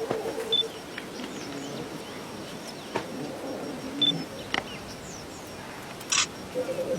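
Outdoor natural ambience: birds giving short, scattered chirps, with a rapid pulsing trill that stops about half a second in and starts again near the end, and a few faint clicks.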